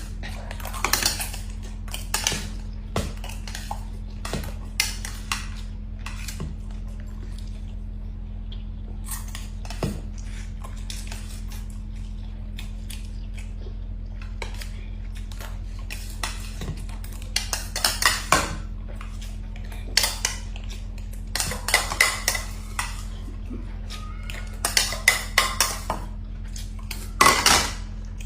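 Cutlery and dishes clinking and clattering in scattered runs as people eat quickly, over a steady low hum.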